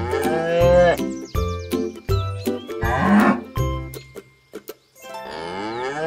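Cow mooing, a long moo near the start and another near the end, over background music.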